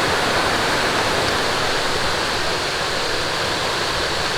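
Mountain valley stream rushing and splashing over rocks: a steady, even rush of water.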